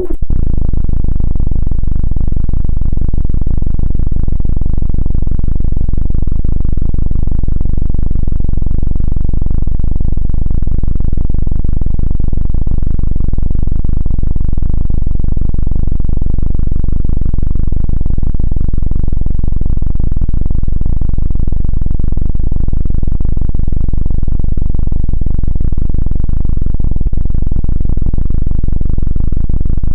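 Helicopter rotor and engine sound: a loud, steady, rapid low thudding drone that never lets up and sounds heavily distorted.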